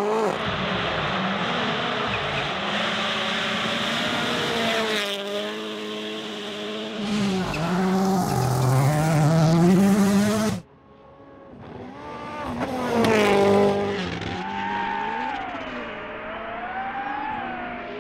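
Rally car engines at race pace: one engine rising and falling in pitch through gear changes, then, after an abrupt cut about ten and a half seconds in, another car approaching, revving hard as it passes and going on up and down in pitch.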